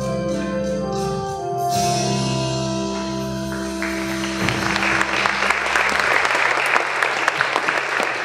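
Stage-show music on an organ-like keyboard holding sustained chords, ending about four and a half seconds in, as a theatre audience breaks into applause that keeps going.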